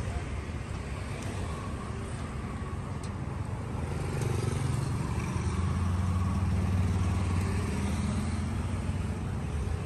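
Road traffic running past: motorbike and car engines with a low hum that grows louder about four seconds in as a vehicle passes close, then eases off near the end. A few light clicks sound now and then.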